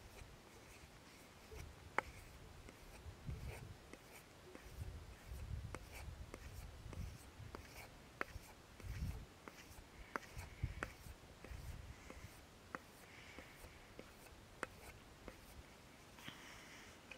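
Faint scraping strokes of a stainless-steel knife blade drawn along a paddle strop, honing the edge, with scattered sharp ticks through it.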